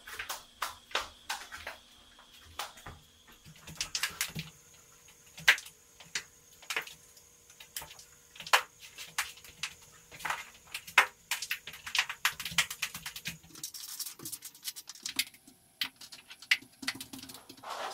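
Irregular sharp taps and scrapes of a hand-held painting tool pressed and dragged across a canvas hung on a wall, one to three knocks a second with uneven force.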